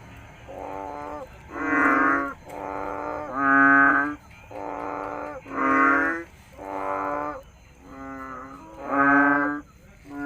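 Frogs croaking: a steady series of short, pitched calls about once a second, alternating softer and louder.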